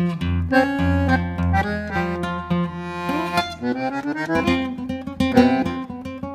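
Instrumental background music: plucked string notes with a held melody line that glides in pitch around the middle.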